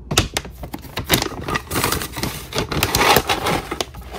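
Plastic cat food bags crinkling and rustling as a hand rummages through them, a dense run of crisp crackles and clicks.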